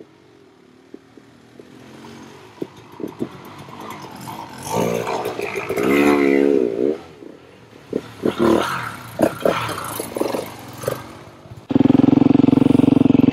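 Off-road motorcycle engines revving up and down, rising and falling in pitch in the middle; near the end a motorcycle engine suddenly comes in loud and close, running with quick, even firing pulses.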